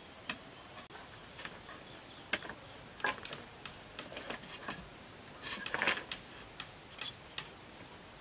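Light, irregular knocks and clicks of bamboo parts being handled and fitted together on a small bamboo water wheel, with a louder cluster of knocks a little past halfway through.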